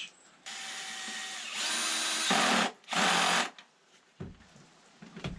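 Repaired vacuum cleaner's electric motor switched on for a test run: a steady whine that starts about half a second in, gets louder, cuts off, then runs again briefly. Two low knocks follow near the end.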